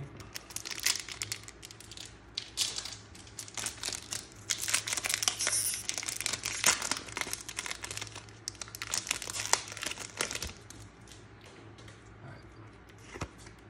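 Foil wrapper of a Pokémon booster pack being torn open and crinkled by hand: an irregular run of sharp crackles that dies down about ten seconds in, leaving a few faint rustles.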